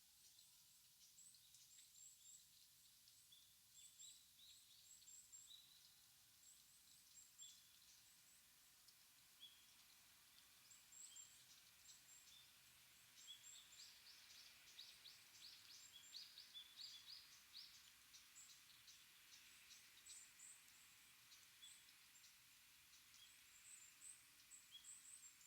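Small forest birds calling in a bamboo grove: many short, high chirps and twitters, thickest in a burst of chatter in the middle, over a faint steady hiss of forest ambience.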